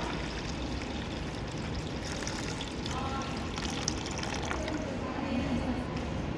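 Water pouring steadily into the base of a model flood-resistant house, filling it so the house floats up. Faint voices are heard in the background.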